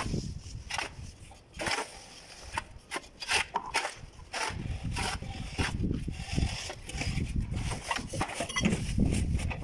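Plastering tools scraping and rubbing across wet cement plaster on a wall, in a series of short strokes.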